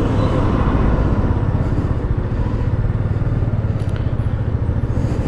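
Motorcycle engines running steadily in slow traffic close behind a lorry: a continuous low engine drone mixed with road noise.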